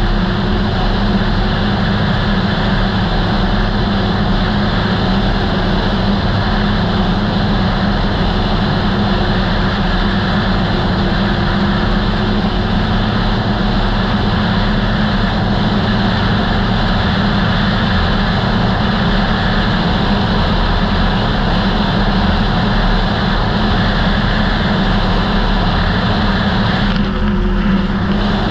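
2008 Polaris Dragon Turbo snowmobile, a turbocharged four-stroke, running steadily at cruising speed, its engine and track noise mixed with wind on the rider's camera.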